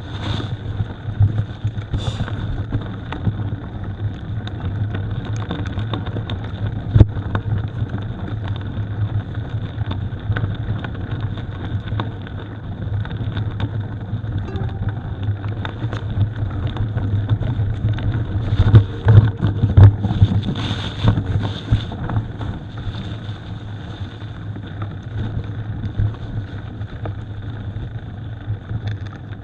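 Mountain bike being ridden over a rough gravel road: steady wind rumble on the microphone with scattered knocks and rattles from the bike, getting rougher about two-thirds of the way in.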